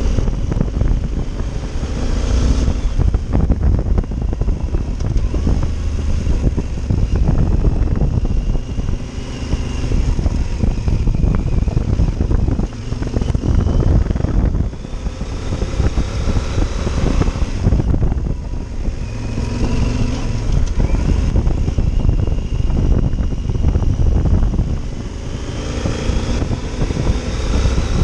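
Yamaha Super Tenere's parallel-twin engine running while the bike is ridden over a dirt road, revs rising and falling several times. Heavy wind buffets the microphone, mixed with the rumble and knocking of tyres and suspension on the rough surface.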